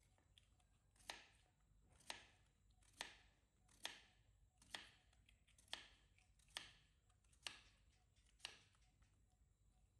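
Kitchen knife slicing through a raw potato onto a wooden cutting board, a quiet cut about once a second, nine in all.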